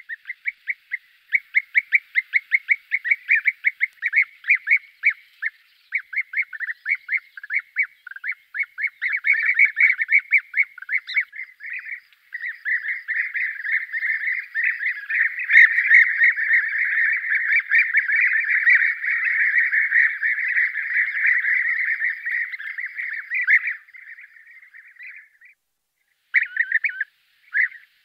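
European bee-eaters calling: quick, rapidly repeated rolling calls that thicken about midway into a dense chorus of many birds calling over one another, then stop briefly and start again near the end.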